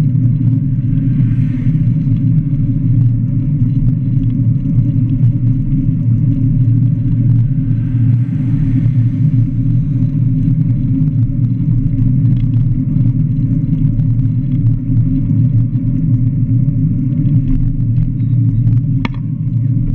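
Steady low rumble of wind and road vibration picked up by a camera mounted on a handcycle rolling along a paved road shoulder. Passing traffic rises faintly twice, about a second in and about eight seconds in, and there is a short click near the end.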